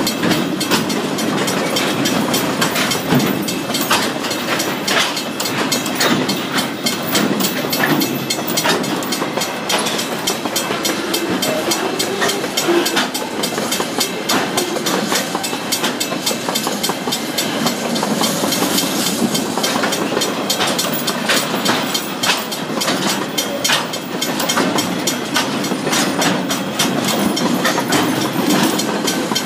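Loaded container flat wagons of a freight train rolling steadily past, with a continuous rumble and hiss of steel wheels on the rails and dense, irregular clacking of the wheels over the track.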